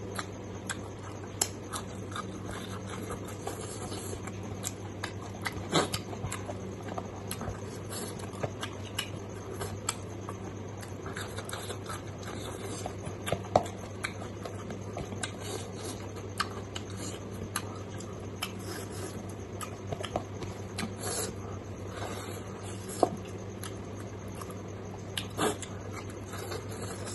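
Close-miked wet chewing and lip smacking of a mouthful of pork and rice, mixed with the squish of fingers kneading curried rice. It comes as many irregular small clicks and smacks over a steady low hum.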